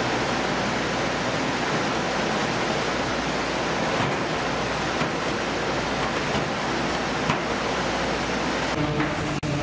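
Steady rushing noise of a fish-processing line running, with a few faint knocks. Near the end a lower, steadier machine hum takes over.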